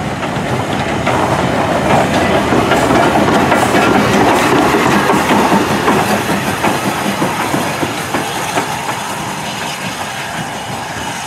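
S&DJR 7F 2-8-0 steam locomotive No. 53809 running past close by, with a steady run of clanks and knocks from its wheels and motion on the rails. It grows louder as it passes, then fades as it draws away.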